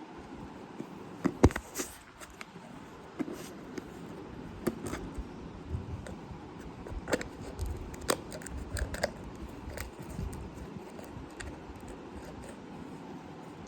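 Handling noises from a packet of dried fruit being handled: scattered clicks, crinkles and small knocks, loudest about a second and a half in.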